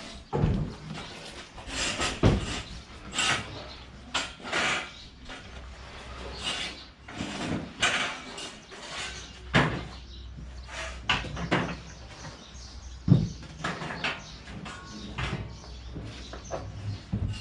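Irregular knocks, clunks and thumps of heavy equipment being handled and set down, roughly one a second, with a sharp bang about two-thirds of the way through.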